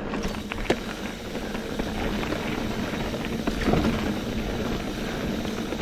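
Mountain bike rolling over a packed-gravel trail: a steady crunch and rattle of tyres and bike, with scattered clicks and knocks and one sharp click under a second in.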